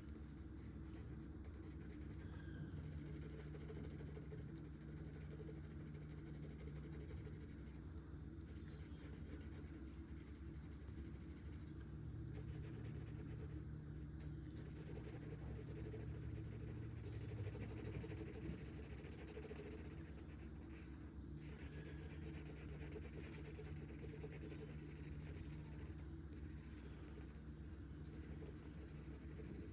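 Marker tip rubbing back and forth across paper in continuous colouring strokes, quiet, broken by a few short pauses where the marker lifts off.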